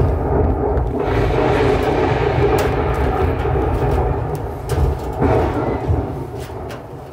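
Loud, deep rumbling thunder sound effect, dying away over the last couple of seconds.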